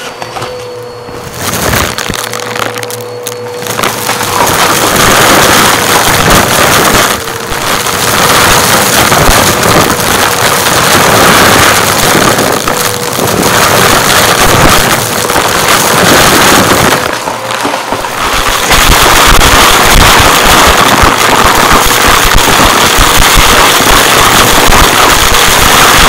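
Upright vacuum cleaner running with a steady motor whine while it sucks confetti and glitter off a carpet. The pieces crackle and rattle up through the head, most densely in the second half. The suction noise briefly drops a few times as the head is moved.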